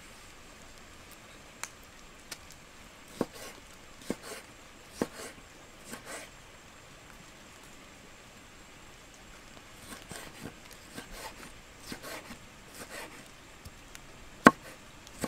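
Kitchen knife chopping tomatoes on a wooden cutting board, the blade knocking on the wood. Single knocks come about a second apart, then after a pause a quicker run of lighter cuts, and one sharp, loud knock near the end.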